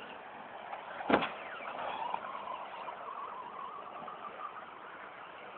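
Radio-controlled off-road racing cars running on the track, their motors giving a wavering whine that rises and falls. A sharp knock sounds about a second in.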